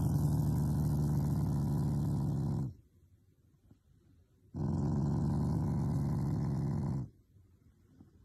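Shiba Inu growling as its cheek is stroked, in two long, steady, low growls with a silence between them. The first breaks off about two and a half seconds in, and the second runs from about four and a half to seven seconds in.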